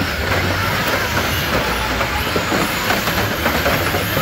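Radio-controlled derby cars running and ramming each other on a concrete floor: a steady rattling clatter of wheels and plastic bodies, with thin high motor whines that rise and fall and a few knocks from collisions.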